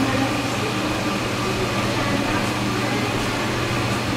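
Steady low machine hum, like ventilation or air-conditioning plant, with several constant low tones and an even hiss; faint voices murmur in the background.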